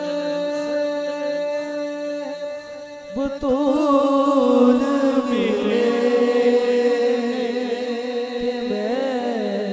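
Wordless devotional naat singing without instruments: steady held notes from backing voices, joined about three seconds in by a louder solo voice that holds and bends long notes.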